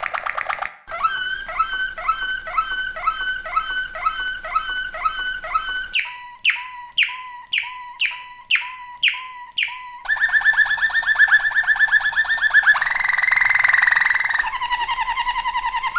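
Malinois waterslager canary singing a run of song tours. It starts with a note repeated about three times a second, then about six seconds in switches to falling whistled notes about twice a second. From about ten seconds in come fast trills, a rolling rattling stretch, and a lower trill near the end.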